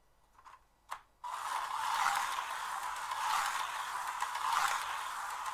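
TCR slot car running on the track, its small electric motor and gears whirring. The sound starts suddenly just after a click about a second in, then swells and fades roughly every second and a half as the car laps.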